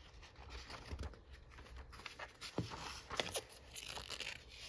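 Magazine pages being handled and turned: faint rustling with a few scattered soft ticks of paper, clearest past the middle.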